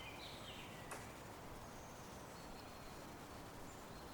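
Faint outdoor ambience through a game camera's microphone: a steady hiss with distant birds calling in short whistled notes, mostly at the very start, and a single sharp tick about a second in.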